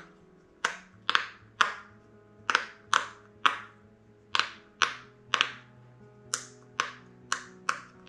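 Pink square silicone pop-it fidget toy having its bubbles pressed one after another: sharp little pops, about two a second in an uneven rhythm, some in quick pairs.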